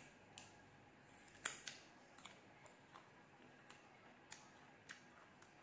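Crisp crunches of someone chewing raw green ambarella (cóc), a sharp crunch every half second to second, the loudest about a second and a half in.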